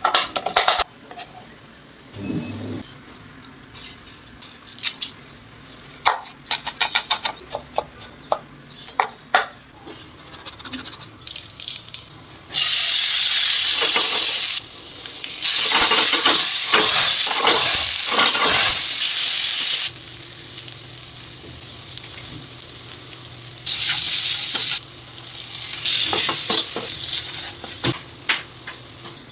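A kitchen knife chopping roasted eggplant on a wooden board in runs of quick taps. From about halfway, chopped onions sizzle in hot oil in a frying pan, in long stretches of hiss, while a spatula stirs and scrapes the pan.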